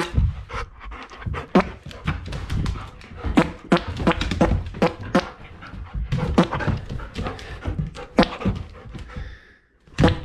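Airedale terrier panting and snuffling right at the microphone during rough play, with irregular sharp knocks and scuffs over a low rumble.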